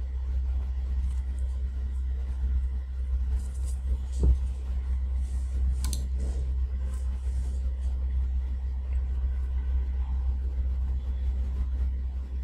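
Steady low rumble of background noise, with a short thump about four seconds in and a sharp click about two seconds later.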